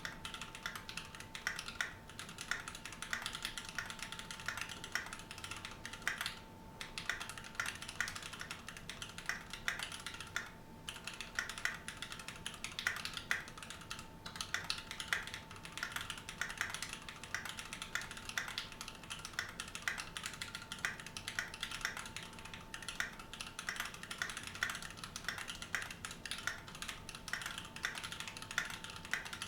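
Continuous fast typing on a Keychron Q2 aluminium-cased mechanical keyboard with stock Gateron Brown tactile switches: a dense stream of key clacks, with two brief pauses in the typing.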